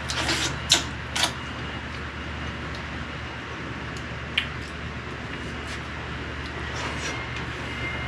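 A few sharp knocks and clicks, two close together early and one smaller one a few seconds later, over a steady low hum and background hiss.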